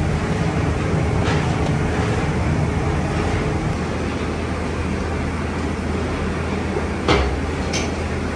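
Plastic recycling factory machinery running steadily with a low hum and a dense rumbling noise. A few sharp knocks cut through it: a faint one about a second in and two louder ones close together near the end.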